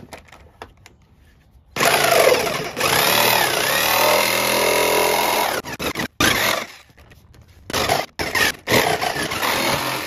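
Corded jigsaw cutting a taillight opening through a plastic golf cart body panel. After a few light clicks the saw runs loudly for about four seconds with its pitch wavering, stops, then cuts again in several shorter runs toward the end.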